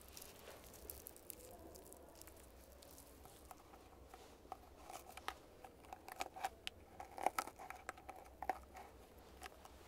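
A thin brush sheet rustling and crinkling as it is handled and pressed down over the bristles of a plastic paddle hairbrush, with small sharp crackles that come thicker from about four seconds in.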